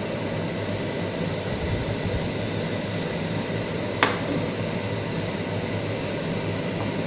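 Steady hiss and low hum from a gas stove with beef simmering in water in a frying pan, with a single sharp click about four seconds in.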